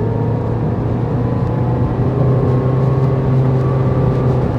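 2016 Nissan Versa's four-cylinder engine and CVT heard from inside the cabin while the car accelerates: a steady drone with a whine that rises slowly in pitch.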